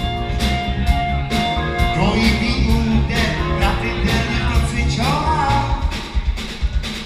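Live band playing an upbeat number, with a steady drum beat about two beats a second, sustained instrument notes and a singer's voice.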